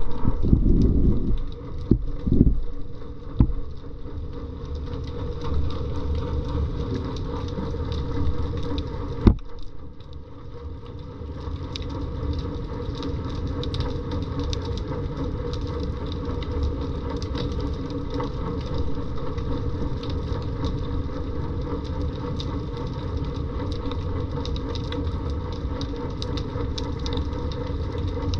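Underwater sound picked up by a submerged camera: a steady low rumble with a faint hum of steady tones and scattered crackling clicks. A few thumps come in the first few seconds, and a single sharp knock about nine seconds in.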